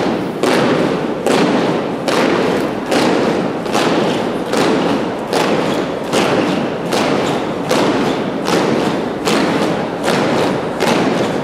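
A large group of students marching in step, their feet stamping together on a gymnasium floor at a little under two stamps a second. Each stamp echoes briefly in the hall.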